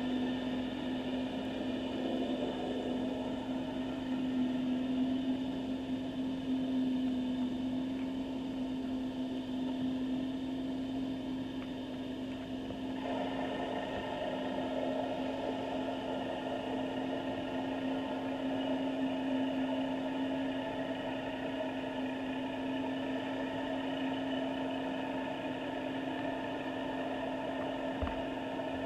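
Steady underwater hum picked up through a seabed camera's housing: one constant low tone with fainter steady tones above it over a noise haze. The upper tones shift slightly about halfway through, and there is a single soft knock near the end.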